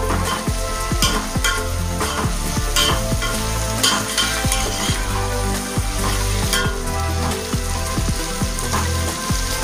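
Metal spoon stirring chopped vegetables frying in oil in a metal pot, with frequent clinks and scrapes of the spoon against the pot over a steady sizzle.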